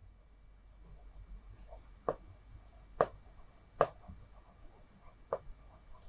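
Faint scratching of a stylus writing on a touchscreen display, with four short sharp taps of the pen tip.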